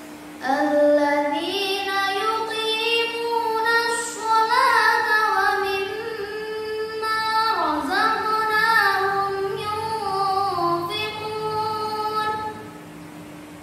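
A young girl reciting the Quran aloud in the melodic tilawah style, a solo voice in long held phrases with ornamented turns of pitch, starting about half a second in and stopping about a second before the end.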